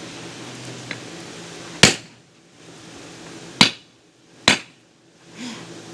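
Three sharp hammer blows on a hot steel hammer-head billet with a drift in its eye, the last two closer together. They snug the drift as the forging goes on.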